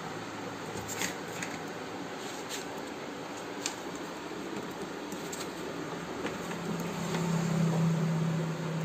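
Steady background hiss with a few faint clicks. A low hum comes in about two-thirds of the way through, grows louder and cuts off near the end.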